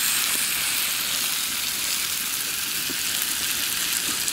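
Steady hiss of a pot of salted water boiling for cooking yabbies.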